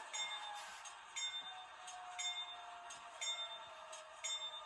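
Locomotive bell from an HO scale GE AC44C6M model's sound decoder, ringing about once a second through the model's small speaker. A fainter diesel engine sound drops slowly in pitch underneath.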